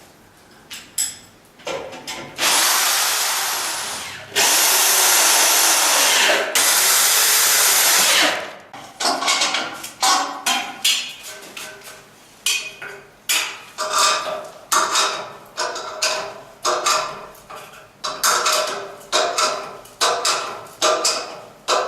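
Power drill running: three long continuous runs, then a long series of short bursts, roughly one a second, as the tool is triggered on and off repeatedly.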